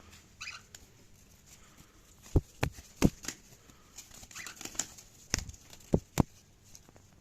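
Pet cockatiel with a few faint short chirps and about six sharp, loud knocks and taps, the loudest bunched between about two and a half and six seconds in.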